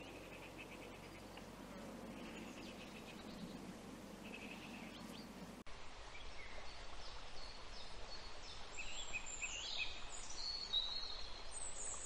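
Faint outdoor background with a low rumble and a few soft, rapid high ticks. About halfway through it cuts abruptly to several songbirds singing together, a mix of high whistles and trills that is louder than what came before.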